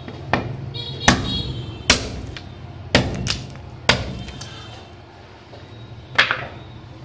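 A long machete-like blade chopping into a wooden plank: a series of sharp chops at uneven intervals, the strongest about one, two, three, four and six seconds in.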